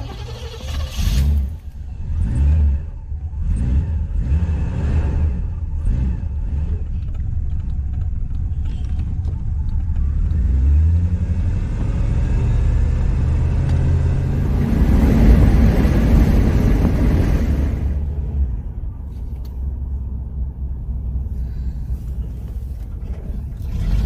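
Chevy 350 V8 heard from inside the car, sputtering unevenly for the first few seconds, then running steadily. It is revved up with the gas pedal around the middle and settles back toward idle.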